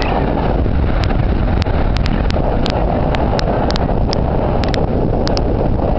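Wind rumbling on the microphone of a camera riding on a moving recumbent bicycle, with irregular sharp clicks, about two or three a second.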